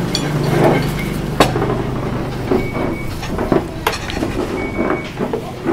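A vehicle engine idling, a steady low drone, with a few sharp clicks and clinks of dishes on the table, the loudest about a second and a half in.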